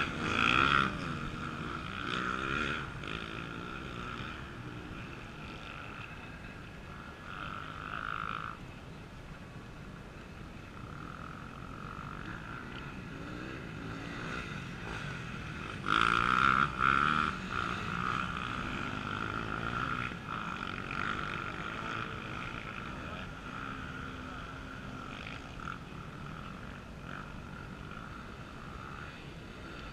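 Enduro dirt bike engines revving, with other bikes running steadily in the distance. The loudest revving comes at the very start and again about sixteen seconds in.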